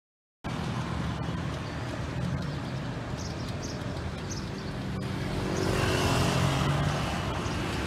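Street traffic: motorcycle and small-truck engines running along a town road, in a steady hum that cuts in abruptly about half a second in and swells as vehicles pass closer around six seconds in.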